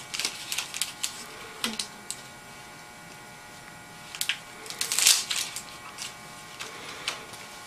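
Scattered sharp clicks and crackles of surgical instruments and dressing material being handled, with the loudest cluster about five seconds in, over a faint steady electrical hum.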